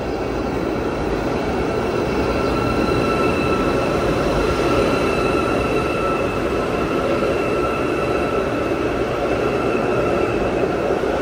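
A train running on its rails: a steady rumble with a faint, steady high whine over it, growing louder over the first couple of seconds.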